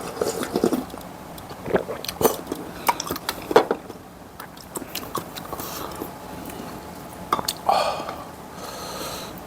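Close-miked chewing and mouth sounds of someone eating: an irregular run of short wet smacks and clicks, with a longer mouth sound near the end.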